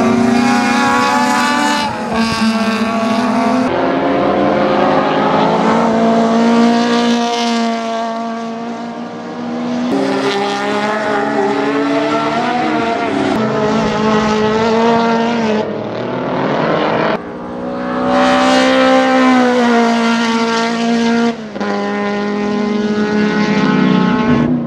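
Ford Escort race car's Cosworth-headed Pinto four-cylinder on twin 48 mm Dellorto carburettors, running hard on track at high revs. The engine note climbs and drops as it accelerates and lifts, with several abrupt jumps between cut-together passes.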